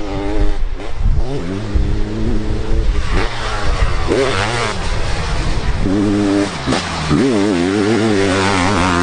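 Sidecar motocross outfit's engine revving hard, its pitch climbing and dropping again and again with the throttle.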